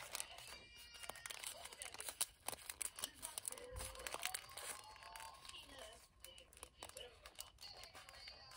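Paper burger wrapper crinkling and tearing as it is peeled back from a burger in the hands, a run of quick rustles and crackles.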